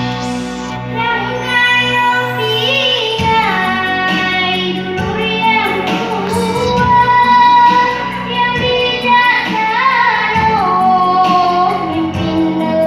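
A girl singing a song solo over instrumental accompaniment, holding long notes with vibrato and sliding between pitches.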